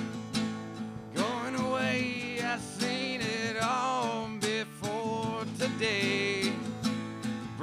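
Country-style song: acoustic guitar backing with a melody line that slides between notes over it, starting about a second in.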